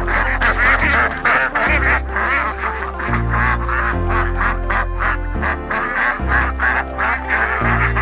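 Ducks quacking in quick succession over background music with a steady bass line.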